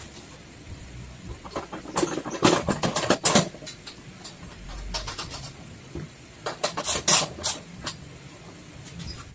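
Clusters of metal clicks and knocks as a small ATV wheel is slid onto a go-kart's steel front stub axle and handled, rattling on the spindle: one burst about two seconds in and another near the seven-second mark.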